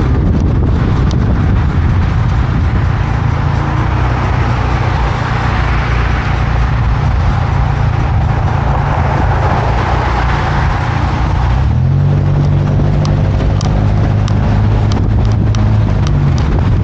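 Toyota Tacoma pickup driving, with wind and road noise rushing over the microphone on top of a low engine hum. About twelve seconds in the rushing dies down, leaving a steadier engine drone with a few held low tones.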